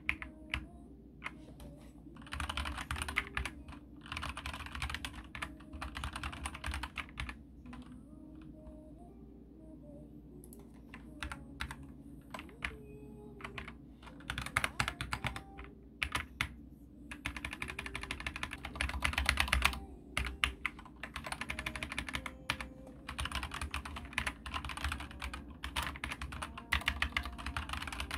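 Typing on a computer keyboard: runs of rapid key clicks, several seconds each, broken by pauses with only scattered keystrokes.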